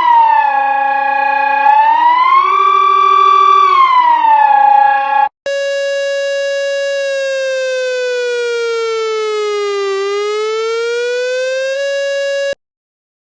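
Two synthesized emergency-alert alarm tones in turn. First comes a loud buzzing tone that glides back and forth between a high and a low pitch, holding each for about a second. After a brief break about five seconds in, a second buzzy tone holds steady, slowly sinks in pitch, climbs back, and cuts off near the end.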